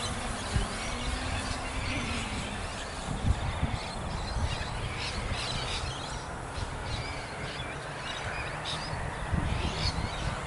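Outdoor ambience of small birds chirping over and over, over a low, uneven rumble of wind on the microphone.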